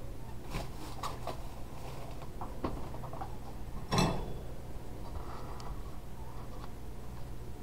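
Scattered light clicks and rustling from hands and rats at a wire rat cage, then one sharp, ringing clink about four seconds in.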